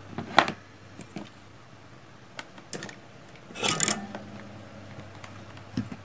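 Desk handling noise as a plastic breadboard and small hand tools are moved on a cutting mat. There is a sharp knock about half a second in, a few light clicks, and a short scraping clatter about three and a half seconds in, over a low steady hum.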